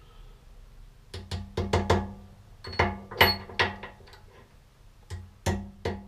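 Hammer blows on a steel steering-head bearing race as it is driven into a motorcycle frame's headstock: about a dozen sharp, ringing metallic knocks in three quick bursts.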